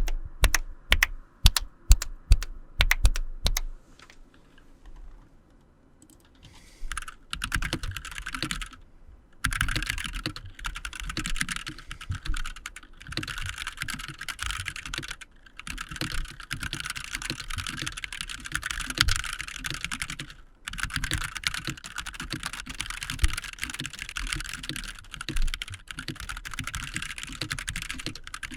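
Typing on a Logitech Pro X 60 Lightspeed keyboard with GX Optical Tactile switches. It opens with several separate, spaced keystrokes. After a short pause comes steady, fast continuous typing, broken by a few brief stops.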